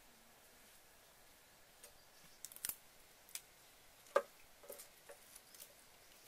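A few light, scattered clicks and taps of objects being handled, the sharpest about four seconds in.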